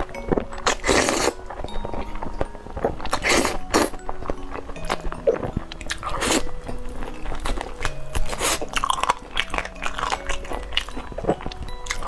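Close-up eating sounds: noodles slurped and chewed, then shrimp bitten and chewed, with sharp crunchy bites every second or two. Soft background music with held notes plays underneath.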